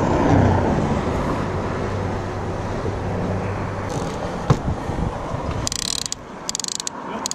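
Steady wind and road-traffic noise, then near the end three short bursts of rapid ratchet clicking from a Penn Squall conventional reel's clicker as line pays out.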